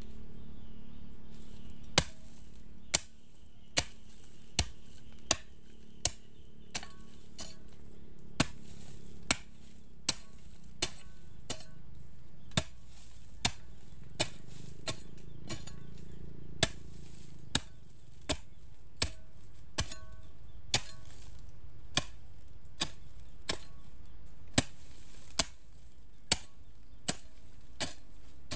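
Hoe blade chopping into dry soil in a steady rhythm, a sharp strike about every 0.8 seconds starting about two seconds in, digging planting holes for corn.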